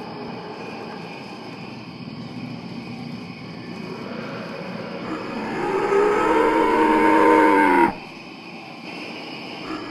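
Dinosaur roar sound effect: after a quieter, rumbling stretch, one long pitched call swells in and cuts off suddenly about eight seconds in.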